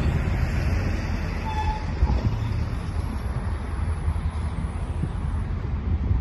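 Freight cars rolling slowly along the rail during a switching move, a steady low rumble of steel wheels on the track. A faint short tone and a small click come about two seconds in.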